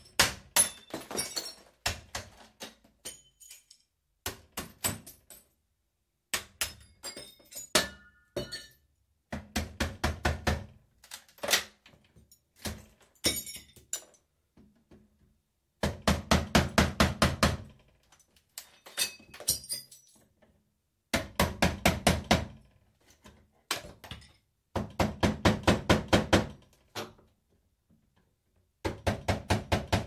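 Hammer knocking broken glass out of a smashed glass front: bursts of rapid blows, several a second, with dull thuds and glass clinking and breaking, separated by short pauses.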